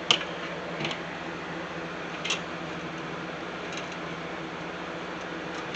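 A few light clicks and taps from computer parts and cables being handled, over a steady background hum.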